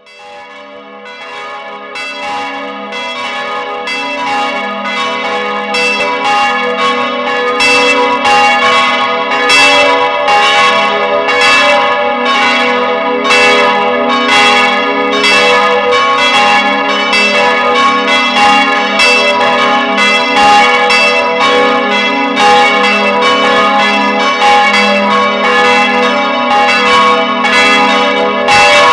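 Church bells ringing in a full peal: several bells struck over and over in overlapping strokes, each stroke ringing on. The sound fades in over the first several seconds, then holds steady.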